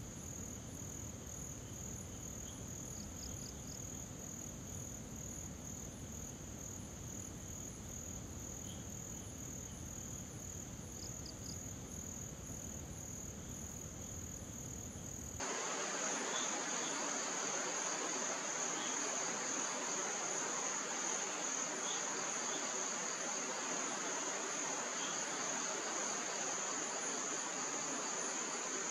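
Night insect chorus, crickets chirring in one steady high band that pulses slightly, with a few faint separate chirps. About halfway through the sound changes abruptly, louder and hissier, as the chorus carries on.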